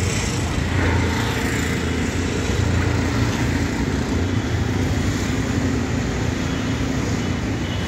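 Steady city road traffic: a low rumble of vehicle engines and tyres on the road, with no single vehicle standing out.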